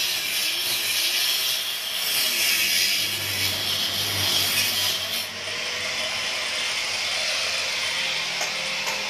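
Handheld angle grinder with its disc grinding into a concrete floor, a steady harsh hiss. About five seconds in the disc comes off the concrete and the motor runs on, quieter.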